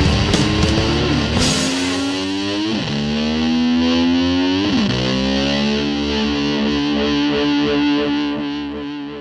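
Rock music with a distorted electric guitar, a few drum hits at the start, then a held note that slides down in pitch and back up twice before the sound starts to fade near the end.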